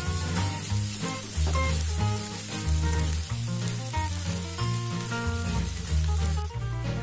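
Vegetables and sauce sizzling in a hot non-stick wok while being stir-fried, over background music with a steady bass line; the sizzle cuts off near the end.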